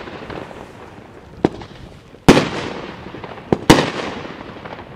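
Consumer fireworks battery firing aerial shots that burst into stars. Two loud bangs, about two seconds in and just under four seconds in, each ring out in a long echoing tail, and each is preceded by a smaller crack.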